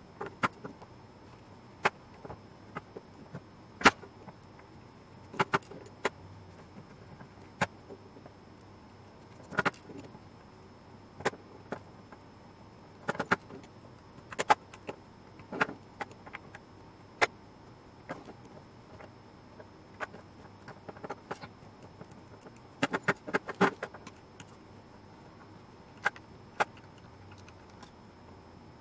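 Irregular small metallic clicks and taps of a screwdriver working small screws out of a metal enclosure, with knocks as the box is handled and turned on a wooden desk.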